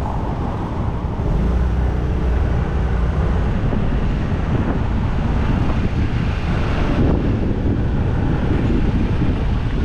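Wind buffeting the microphone of a moving bike, over a steady low rumble of road and traffic noise.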